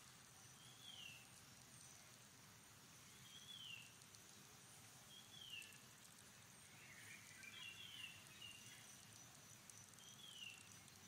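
Faint, short, high-pitched calls sliding downward, repeated about every two to two and a half seconds, with a small cluster of them about two thirds of the way through, over a faint steady high background hiss.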